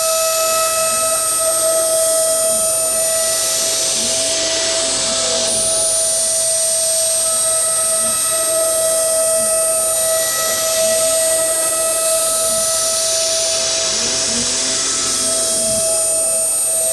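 CNC router spindle running with a steady whine while the machine cuts. Under it, a lower motor tone rises and falls about every two seconds as the axes move back and forth, and the cutting noise swells roughly every five seconds.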